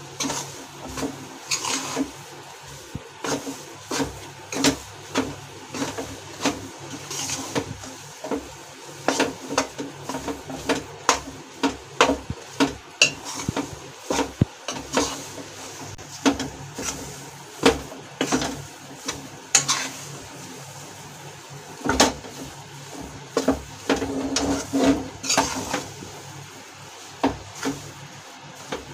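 Metal spatula scraping and knocking against the inside of a metal kadhai as a thick besan-and-ghee paste is stirred and roasted, in irregular strokes about once or twice a second.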